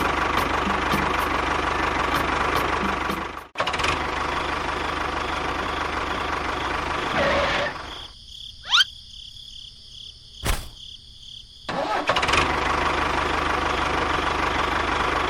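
Small motor of a DIY mini tractor running steadily with a constant whine. It cuts off abruptly about a third of the way in, then carries on. Past the middle it gives way for a few seconds to a quieter stretch holding one quick rising whoosh and a sharp click, then resumes.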